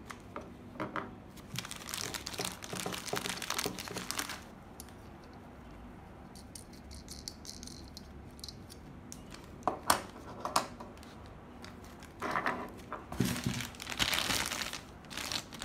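Clear plastic packaging bags crinkling in bursts as they are handled: a few seconds of crinkling, then two sharp clicks, then more crinkling near the end.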